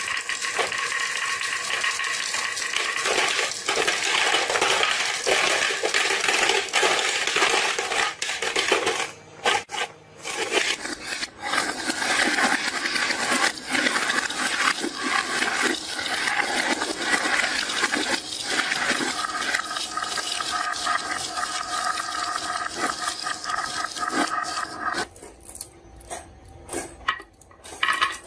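Many marbles rolling and clattering down a wooden HABA marble run slope: a dense stream of small clicks and rattles that thins out briefly around ten seconds in and again near the end.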